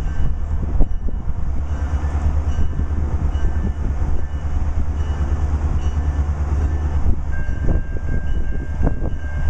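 Diesel freight locomotive approaching slowly: a deep, steady engine rumble with a few sharp clicks from the wheels on the rails. A thin, high-pitched squeal comes in about seven seconds in and holds.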